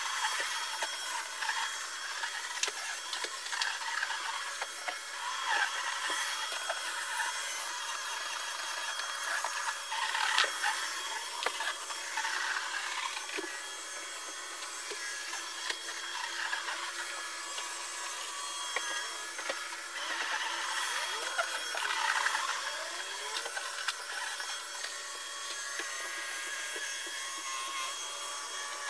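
Vacuum cleaner running with a steady high whine, its brushes or nozzle scraping and rubbing over the floor, with scattered small clicks and knocks.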